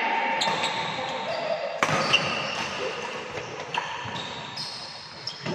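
Badminton rally with a Li-Ning Windstorm 72 racket: sharp racket-on-shuttlecock strikes, one about two seconds in and another near the end, echoing in a large hall. Short squeaks and faint voices come in between.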